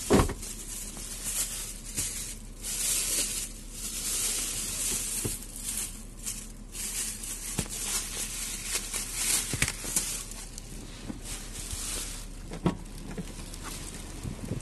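Thin plastic carry bags rustling and crinkling in irregular bursts as they are handled. A sharp knock comes right at the start, and a few sharp clicks follow later.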